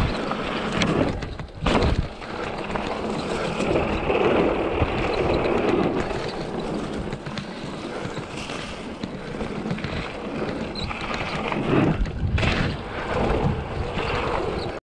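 Mountain bike riding fast down a dirt forest singletrack: tyres rolling over packed dirt and dry leaves and the bike rattling, with wind buffeting the microphone. Louder knocks from bumps come about two seconds in and again near twelve seconds, and the sound cuts off suddenly at the end.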